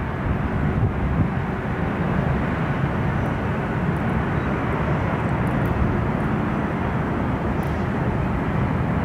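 British Airways Boeing 747-400's four Rolls-Royce RB211 jet engines, a steady deep jet noise as the airliner rolls out along the runway just after touchdown.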